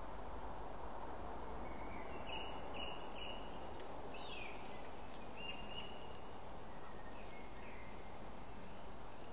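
Steady hiss of a trail camera's microphone with a low hum, over which a few faint bird calls sound: short high chirps and one quick falling note, scattered from about two seconds in.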